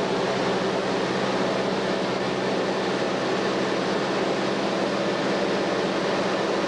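Light aircraft in flight, heard from inside the cabin: a steady engine and propeller drone with a constant low hum and a rush of air over it.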